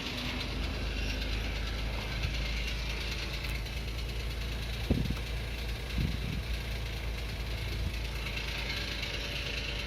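A car engine idling: a steady low rumble, with two faint knocks about five and six seconds in.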